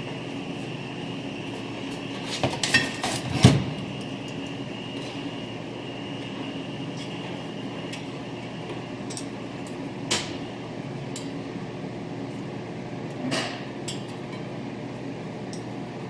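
Metal clinks and knocks as a differential carrier with an ARB air locker is wiggled down into a front differential housing with a small screwdriver. A quick cluster comes about three seconds in, the loudest knock ending it, and single clicks follow later, over a steady background hum.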